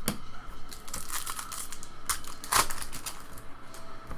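Trading card pack wrappers crinkling and crumpling as packs are handled and opened, with irregular sharp crackles and a louder crunch about halfway through.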